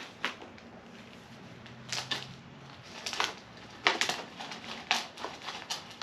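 Packed, root-bound potting soil being broken apart by hand: a string of irregular crunching and scraping noises, loudest around the middle.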